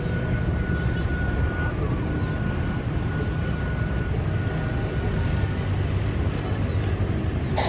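Steady low engine rumble from passing motorbikes and a car and a jet airliner moving on the apron, with a faint thin whine that comes and goes.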